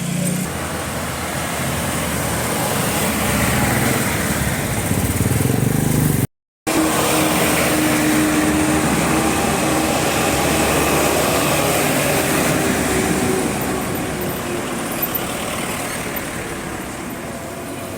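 Motor vehicle engine running with road noise, swelling and easing as it passes; the sound cuts out for a moment about six seconds in.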